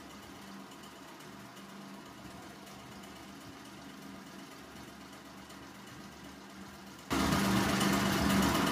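A steady low mechanical hum with no cutting snips to be heard, faint at first, that jumps abruptly much louder about seven seconds in.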